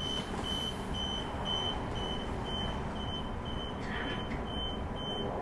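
Bombardier B-series electric train's door warning beeper sounding a high, short beep about twice a second, over the steady low hum of the train.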